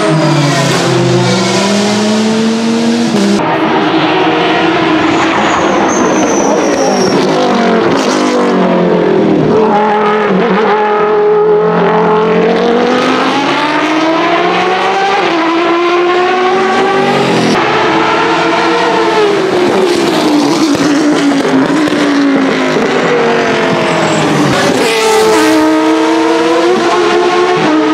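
Judd GV4 4.0-litre V10 of a 2001 Dallara SP1 racing prototype at high revs, the engine note repeatedly rising through the gears, dropping at each upshift and falling as it passes and brakes. Other race cars' engines are heard alongside it.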